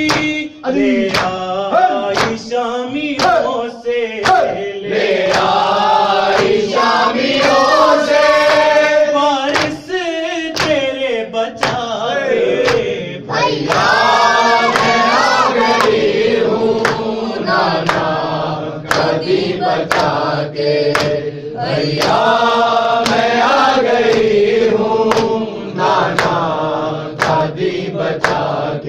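Men chanting an Urdu noha, a mourning lament, together in a chorus, with regular sharp hand slaps on the chest (matam) keeping the beat throughout.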